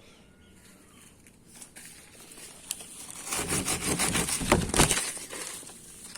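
Rough rasping noise of a tool cutting into cocoa tree wood. It starts about three seconds in and lasts about two seconds, loudest near its end, then dies away.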